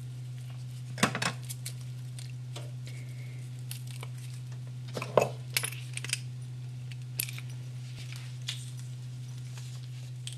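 Scattered sharp metallic clicks and clinks as a metal garlic press is handled and loaded with a garlic clove, the busiest cluster about five seconds in, over a steady low hum.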